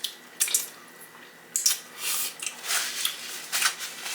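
Close-miked wet chewing and mouth sounds: an irregular run of short smacks and squelchy clicks as food is chewed.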